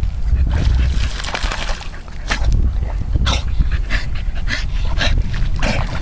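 Staffordshire bull terrier splashing in shallow water as it dunks its head under and then wades, over a steady low rumble. From about two seconds in there is a run of short sharp splashes, roughly one every half second.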